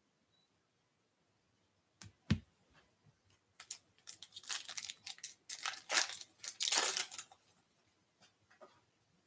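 A soft knock about two seconds in, then the wrapper of a Topps Holiday baseball card pack crinkling and tearing as it is ripped open, in a run of rustles lasting a few seconds that fades into a few light ones.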